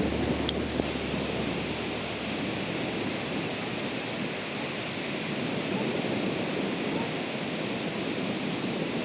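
Steady rush of small surf breaking on the beach, with wind noise on the microphone. A low hum fades out in the first couple of seconds, and two faint clicks come near the start.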